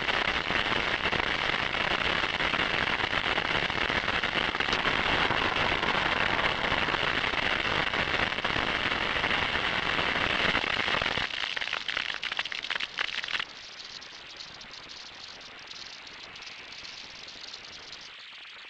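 Dense, steady crackling and sizzling like something burning, which thins into separate crackles and then cuts abruptly to a quieter hiss about thirteen seconds in.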